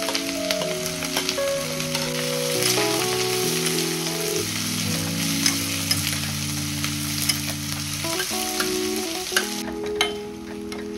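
Sliced onions and green chillies sizzling in hot oil in a stainless steel pan while a metal spoon stirs them, clinking against the pan a few times. The sizzle eases near the end.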